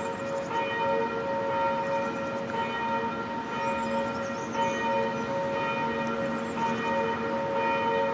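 Church bells pealing: several bells ringing together, with long ringing tones and fresh strikes about every two seconds.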